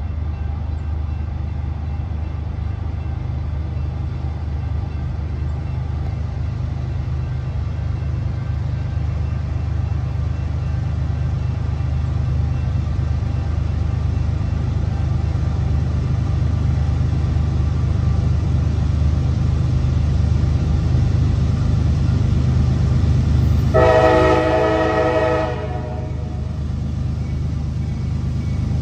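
Approaching CSX diesel freight locomotive: a low engine rumble that slowly grows louder, then one air-horn blast of several notes at once, about a second and a half long, near the end.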